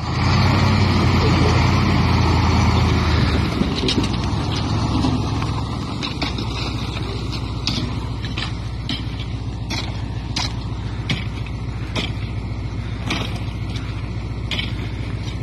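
KamAZ truck's diesel engine running hard under load for about three seconds, then easing off into a steady low running sound. From about halfway on, sharp irregular crunches and clicks of boots and a pole on broken ice.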